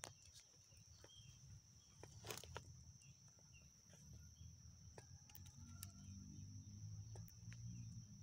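Near silence outdoors: a faint, steady high-pitched insect drone over a low rumble, with scattered small clicks.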